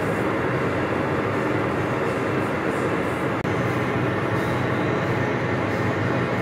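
Metal lathe running with its chuck spinning while a tap cuts threads in the workpiece: a steady mechanical drone that drops out for an instant about halfway through.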